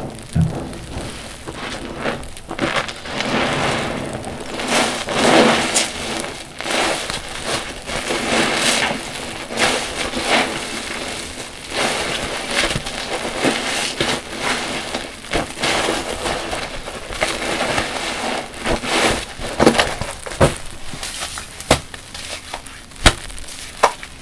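Soapy car wash sponges squeezed and rinsed in water: wet squelching and crackling foam that swells with each squeeze every couple of seconds, with a few sharp pops near the end.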